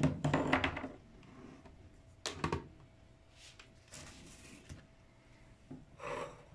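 Plastic blender jar handled and lifted off its metal motor base: a short loud burst at the start, then a few separate knocks and clicks.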